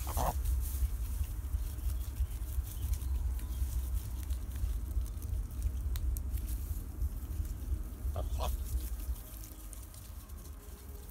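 Domestic geese feeding close by, giving a few short calls: one at the start and two quick ones about eight seconds in. These sit over a steady low rumble that drops away about nine seconds in.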